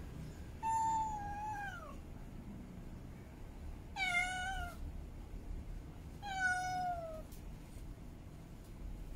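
Female domestic cat in heat calling: three drawn-out meows a few seconds apart, the first and last sliding down in pitch at the end.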